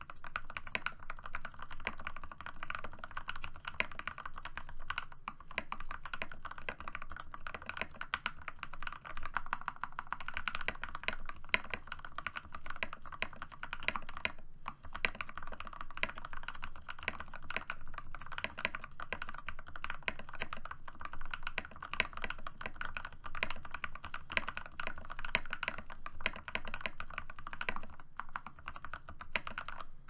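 Fast, continuous typing on a modded TM680 mechanical keyboard with hand-lubed, filmed Gateron Pro Milky Red linear switches and PBT XDA-profile keycaps: a dense stream of keystrokes with one brief pause about halfway.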